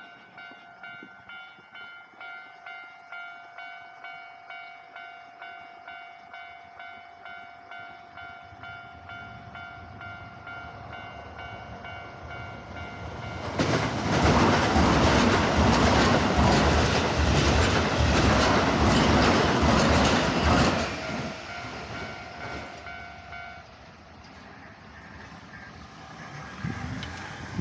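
Japanese railway level-crossing warning bell ringing steadily, about two dings a second. About halfway through, a Keisei Line train passes over the crossing, its wheels rumbling and clattering loudly for about seven seconds. The bell stops a couple of seconds after the train has gone.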